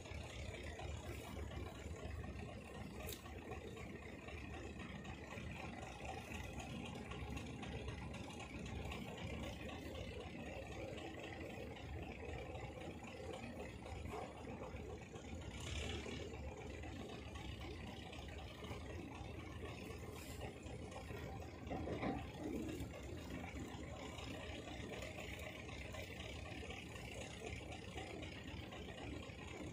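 Steady low outdoor background rumble with no clear pitch, with a few faint soft clicks about 3, 16 and 22 seconds in.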